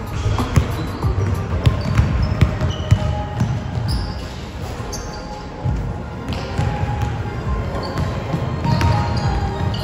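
Basketball game on a gym court: the ball bouncing, with repeated knocks and short high squeaks from play on the floor, over background music.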